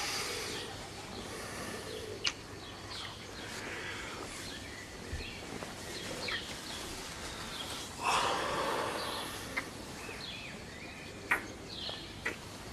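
Close breathing and kissing sounds over a quiet background with scattered short bird chirps: a heavy breath about eight seconds in, and a few sharp little lip clicks.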